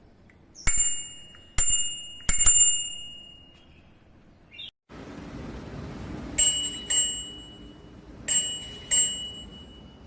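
TOOPRE alloy bicycle bell rung seven times: three single dings in the first few seconds, then after a short break two quick pairs of dings. Each ding is a sharp strike that rings on with a bright, high tone and fades over about a second.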